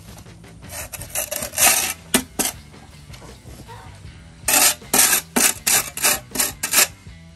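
A flat shovel scraping loose dirt across a concrete slab: a few scrapes about a second in, then a quick run of short strokes from about four and a half seconds in.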